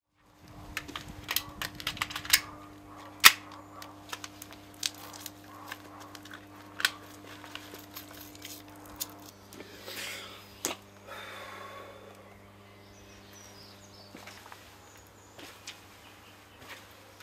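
Scattered sharp clicks and knocks at an uneven pace, the loudest about three seconds in, over a steady low hum. A few faint bird chirps come in about thirteen seconds in.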